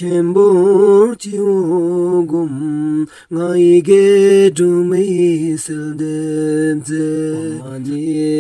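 A voice singing a Buddhist mantra to a slow melody, holding long notes that waver and bend, with short breaks between phrases.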